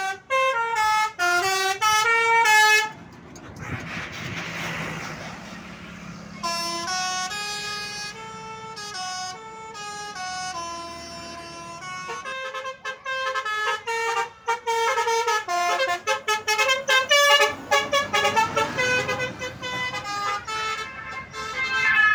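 Basuri telolet horns on buses playing quick stepped melodic tunes, several horn notes at once, in repeated bursts. Between the tunes, about three to six seconds in, comes the rush of a bus driving past.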